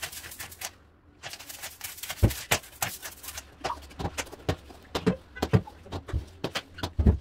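A long-handled floor brush scrubbing soapy, wet ceramic floor tiles, making irregular scraping strokes and knocks as the head hits the floor. A few louder thumps come about two seconds in, near the middle and near the end.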